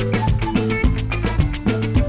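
Background music with quick, steady percussion over a bass line.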